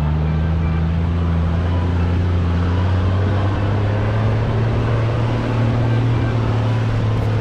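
4x4 vehicle's engine running under way with a steady low drone and road noise; the drone's pitch drops a little about three and a half seconds in.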